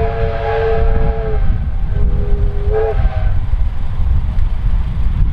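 Steam whistle of the R class steam locomotive R761 sounding a long blast that stops about a second and a half in. It then sounds a second, shorter and slightly lower blast about two seconds in, over a constant low rumble.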